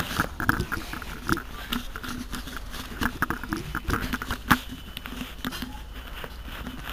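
A city bus rumbles low and steady, with irregular clicks and knocks over it, the loudest about four and a half seconds in.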